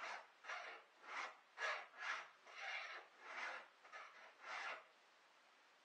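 Hand file rasping across the cutters of a chainsaw chain: about nine even strokes, roughly two a second, that stop near the end. The old chain is being sharpened to get more use out of it.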